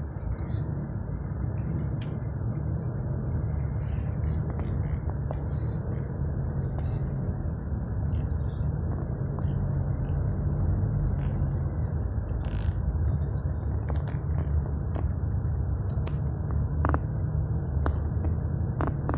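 Steady low rumble of vehicle engines and traffic, with a few light clicks and knocks scattered through it.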